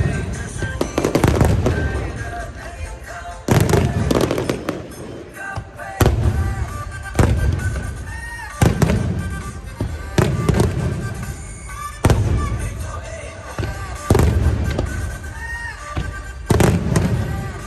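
Aerial firework shells bursting in a show: a loud boom every two seconds or so, each trailing off, with music playing under them.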